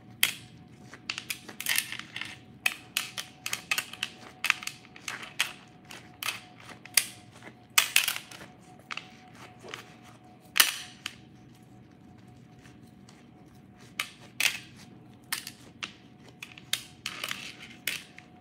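Hands in thin plastic disposable gloves patting and pressing raw ground beef into a meatloaf, with irregular sharp crinkles and soft slaps several times a second. The sounds pause for a few seconds a little past the middle.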